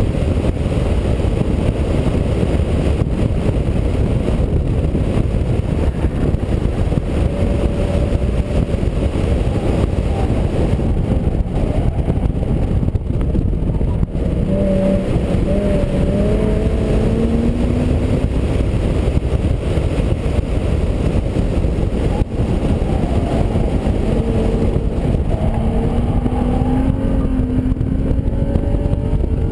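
Wind buffeting a camera mounted outside the door of an '04 Infiniti G35 coupe at track speed, with the car's 3.5-litre V6 engine under it. The engine note rises in pitch twice in the second half as the car accelerates.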